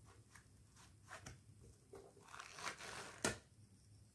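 Faint handling of a paperback book: pages rustling and turning with small ticks, and one sharper tap a little over three seconds in.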